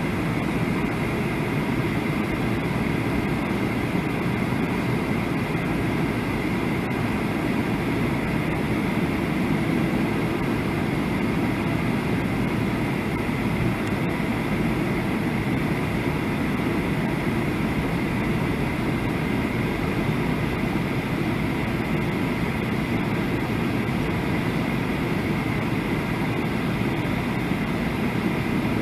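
Steady cabin noise inside a Boeing 737 on approach: the engines and rushing air make an even low rumble, with a faint steady high whine above it.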